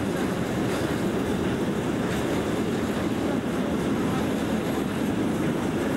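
Container freight train's wagons rolling past: a steady rumble of steel wheels on the rails.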